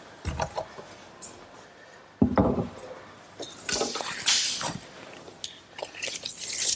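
Large pine panel being handled on a workbench: scattered knocks and a loud thump about two seconds in as the board is set down, then a hand brushing and rubbing across the wood.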